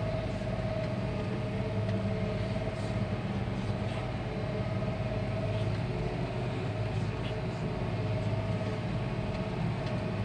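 Challenger CVT tractor's 6-litre diesel engine running steadily under load while pulling a tillage tool, heard from inside the cab.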